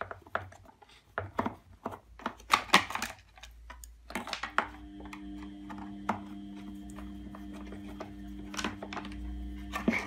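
Clicks and knocks of a screwdriver and hard plastic housing parts as screws are taken out of a vacuum cleaner's casing. From about four seconds in, a steady hum made of several tones runs beneath the clicks.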